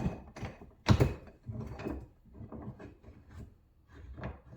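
Clunks and clatter of metal tools and parts being handled on a workbench: two loud knocks, at the start and about a second in, then softer rattling and bumping.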